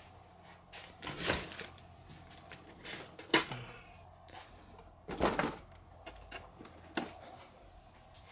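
Scattered knocks and clatter of 1/10-scale RC rock crawlers being handled and set down on a workbench, with a sharp knock about three seconds in the loudest.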